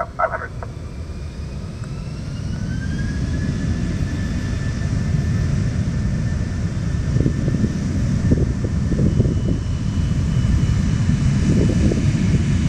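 Twin jet engines of a Spirit Airlines Airbus A320-family airliner spooling up on the runway for the takeoff roll. A whine rises in pitch about two seconds in and then holds, while a deep rumble builds louder.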